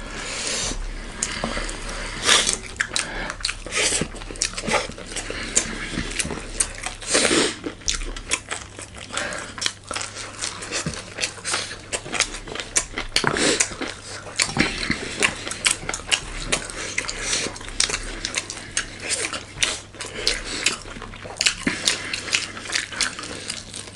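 Close-up mukbang eating sounds: chewing and biting, with many short wet smacks and clicks, and now and then a clink of cutlery on a plate.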